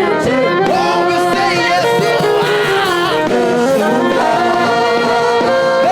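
Live gospel music: a choir singing over a band's steady instrumental backing, without a break.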